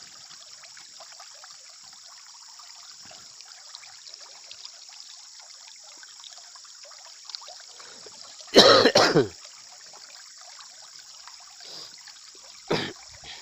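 A person clearing their throat loudly about two-thirds of the way in, and briefly again near the end, over a steady hiss of background noise.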